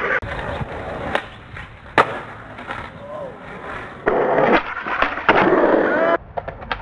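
Skateboard wheels rolling on pavement, with several sharp clacks of the board striking the ground.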